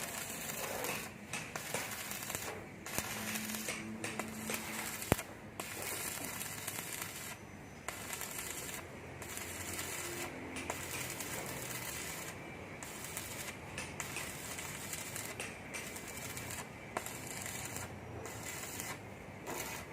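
Electric arc welding on a steel IWF250 beam: a steady crackling sizzle of the arc, broken by many short gaps where the arc stops and restarts.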